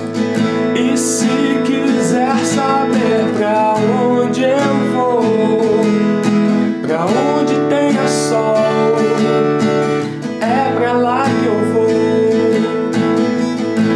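Acoustic guitar strummed in a steady rhythm, changing chords every couple of seconds between A9, E and D.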